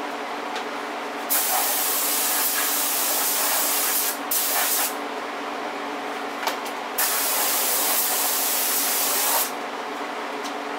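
HVLP spray gun hissing in three bursts as the trigger is pulled for each pass, spraying high-build urethane primer: a long burst, a short one, then another long one, over a steady hum.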